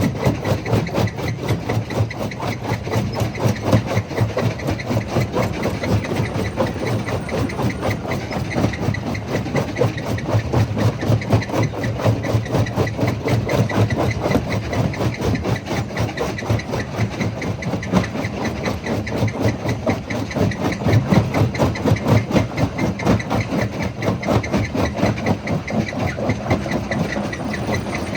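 Jaw crusher running steadily with a fast, even rhythmic churn, and irregular louder knocks as stones are crushed.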